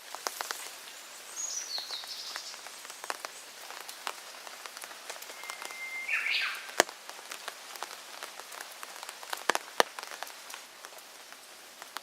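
Steady rain, with drops ticking irregularly on nearby surfaces and a few louder single drops. A bird gives two short calls, about a second and a half in and again about six seconds in.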